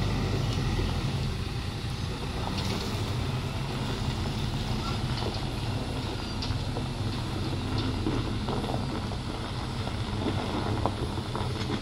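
Heavy truck's diesel engine running steadily under load.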